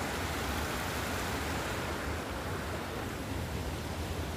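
Muddy flash-flood water rushing steadily across a road, a constant noisy rush with a low rumble underneath.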